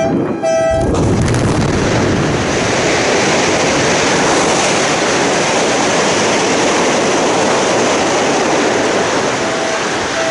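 Large quarry rock blast: a short tone, then about a second in the charge goes off, and a long, steady, loud roar follows. The charge is 585 holes of dynamite and slurry explosive fired in sequence on electronic detonators.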